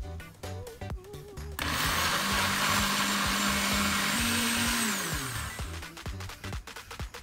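Electric kitchen mixer motor runs hard for about four seconds, rises slightly in pitch, then winds down with a falling pitch and stops. Background music with a steady beat plays throughout.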